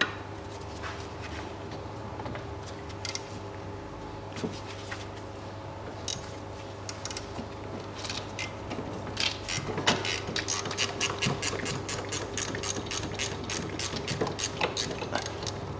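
Ratchet wrench with a 12 mm socket loosening the gearshift linkage clamp nut: a few scattered clicks at first, then quick repeated ratchet clicking from a little past halfway, over a steady low hum.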